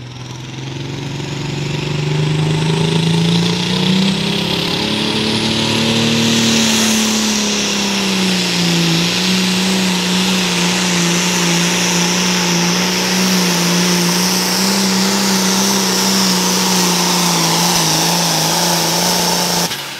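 Modified John Deere 4320 pulling tractor's 466-cubic-inch diesel at full throttle pulling the sled: the revs climb over the first several seconds, dip briefly around eight seconds in, then hold steady and high until the sound cuts off suddenly near the end.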